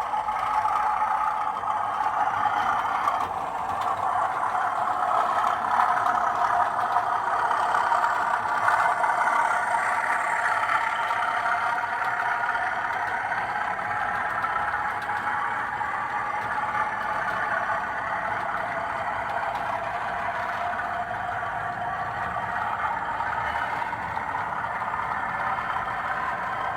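Model train running on a layout: a steady mechanical whir from the locomotive and wagons on the track, its pitch drifting slowly up and down.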